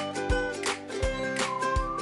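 Cheerful background music with a steady beat.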